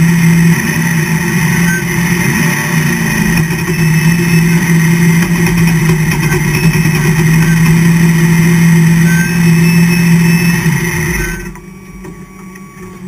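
NASCAR stock-car V8 engine heard from inside the cockpit, running at low revs while the car rolls slowly, with small blips in pitch. It shuts off about eleven seconds in, leaving a much quieter remainder.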